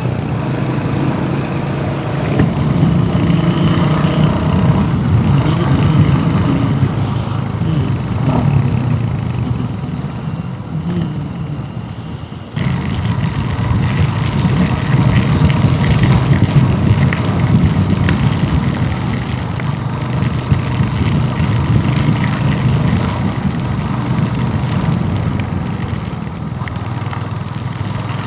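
Royal Enfield Hunter 350's single-cylinder engine running steadily while the motorcycle is ridden along the road. About twelve seconds in the sound cuts abruptly and comes back a little louder.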